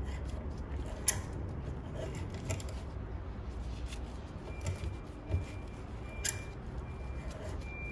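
Hand threading die in a die stock cutting an M10 thread onto a 10 mm steel bar, lubricated with cutting compound: metallic scraping with a few sharp clicks as the handle is worked round.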